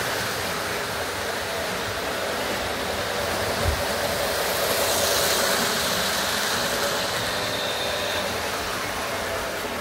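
Three-rail O-gauge model train running steadily around the track, a continuous whir of its electric motor and the rumble of metal wheels on the rails.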